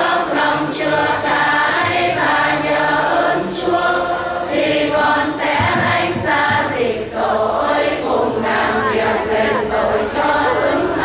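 Choir singing a hymn, several voices together in sustained, changing notes.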